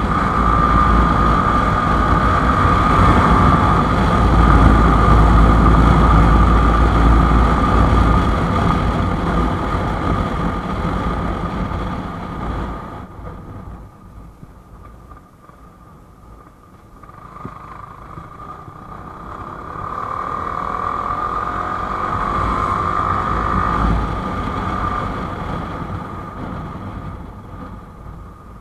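Yamaha R15 V4 motorcycle's 155 cc single-cylinder engine running as it rides along the road, with wind rushing over the microphone. The noise drops suddenly about halfway through, swells again, and fades near the end.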